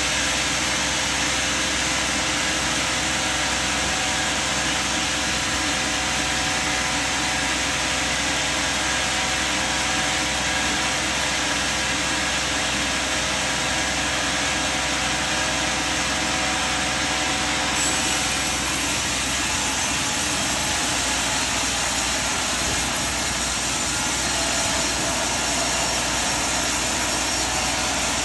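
Sawmill machinery running steadily, a continuous engine-like drone with faint steady tones; the sound changes about eighteen seconds in.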